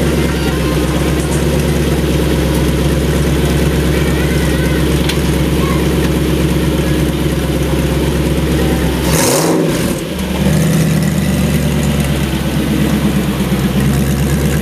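Spyker C8 Spyder's Audi-sourced V8 engine idling with a steady, loud exhaust note, broken by a short rush of noise about nine seconds in.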